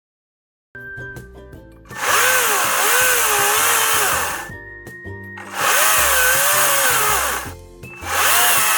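GreenWorks 40V battery-powered electric chainsaw cutting wood in three bursts of a couple of seconds each. The motor's whine wavers up and down in pitch as the chain bites. Background music plays throughout.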